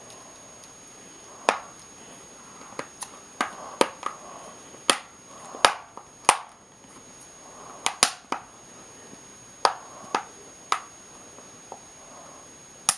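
Back cover of a Google Nexus 7 (2012) tablet being pressed on around its edge, its plastic clips snapping into place in a string of sharp, irregular clicks.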